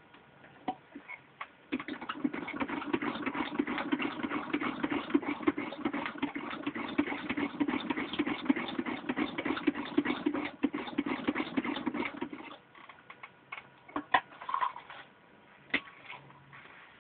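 Singer 127 vibrating-shuttle sewing machine head, turned by hand at the handwheel, stitching through six layers of denim: a fast run of mechanical clicking for about ten seconds that then stops, followed by a few separate clicks and knocks.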